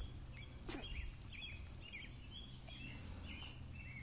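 Faint, short high chirps repeating every half second or so, a bird calling, over a low steady outdoor rumble, with one soft click a little under a second in.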